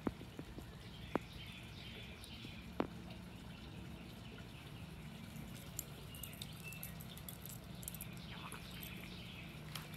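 Faint outdoor ambience with distant birds chirping now and then, and two sharp clicks in the first three seconds.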